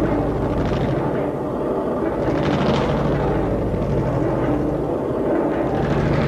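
Amplified computer-controlled percussion machine: a heavy rolling steel ring, about 55 pounds, thumping on a table as solenoid-driven steel wires are pushed into its path. It makes a dense, unbroken rumble of very rapid thumps.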